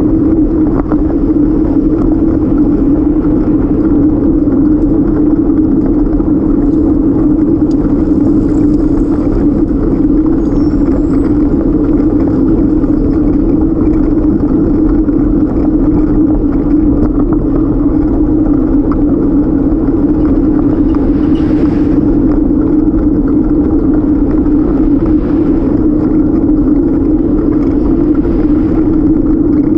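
Wind rushing over the microphone of a camera riding on a moving bicycle, with road rumble from the tyres underneath: a loud, steady noise that runs without a break.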